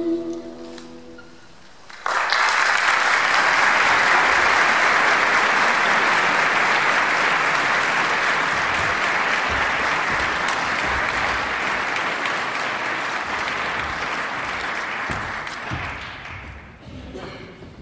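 The last held note of a duduk dies away, then about two seconds in an audience breaks into applause, which runs evenly and fades out near the end.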